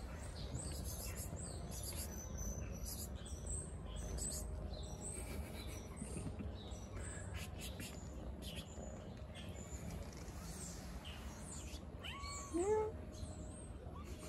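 A hungry black-and-white stray cat gives one short meow near the end, rising then falling in pitch. Small birds chirp faintly in the background throughout.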